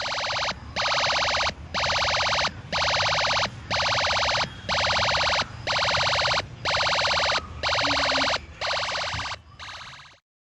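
UM3561 sound-generator chip's machine-gun effect played through a small loudspeaker: about a dozen bursts of rapid electronic fire, roughly one a second, stopping suddenly near the end.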